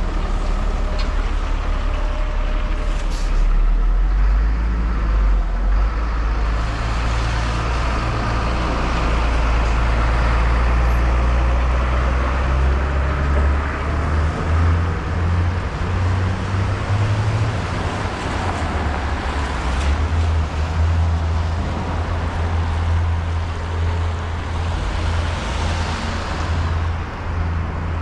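City street traffic: motor vehicles running and passing, with a constant low rumble.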